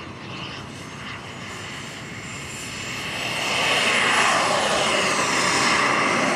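Radio-controlled model jet's turbine whining as it flies past. The sound grows louder from about three seconds in, and its pitch falls as it passes.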